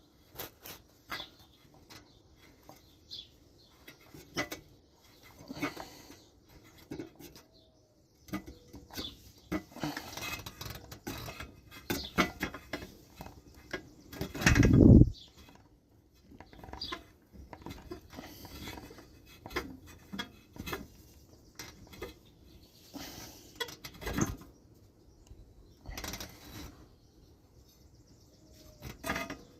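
Scattered small clicks, taps and scrapes of a screwdriver and hands working the fuel pump's mounting screws on a lawn mower engine, with one louder dull thump about halfway through.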